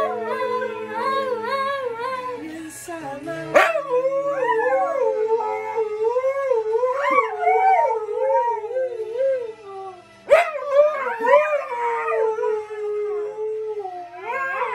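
Two Siberian huskies howling together, long wavering howls that rise and fall and overlap each other, with music under them. Two sharp clicks break in, about three and a half seconds in and again about ten seconds in.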